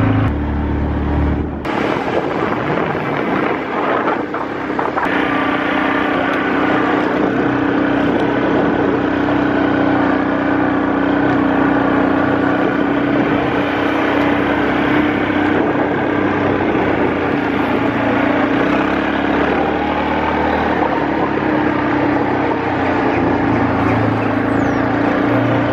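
A steady engine drone holding one pitch, with a small change in the first two seconds.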